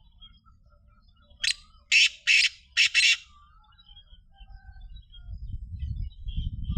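Black francolin calling: one harsh, grating phrase of five quick notes about a second and a half in. Faint chirps of other small birds sound behind it, and a low rumble builds near the end.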